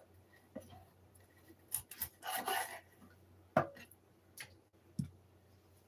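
Kitchen knife cutting through raw chicken wing skin and joint on a wooden cutting board: one scraping rasp of the blade a little past two seconds in, and a few light taps and knocks of blade and meat against the board.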